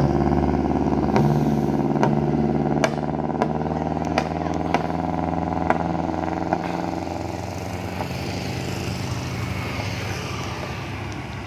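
Bus diesel engine pulling up a steep hill climb, a steady drone that gradually fades as it moves away, with several sharp clicks over the first half.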